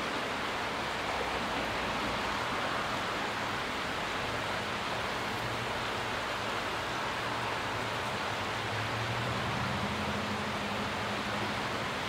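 Shallow creek water rushing over a rocky riffle: a steady, even rushing noise. A faint low hum sits underneath, growing a little stronger after about four seconds.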